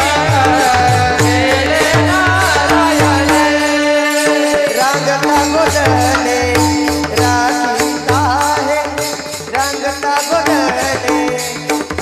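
A male singer performing a Varkari devotional bhajan over a steady held drone, with a drum and small hand cymbals keeping the beat. The drum drops out for about a second, around four seconds in.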